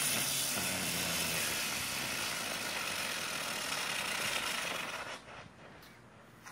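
A jumbo ground bloom flower firework spinning and spraying sparks, with a steady hiss that dies away about five seconds in as it burns out.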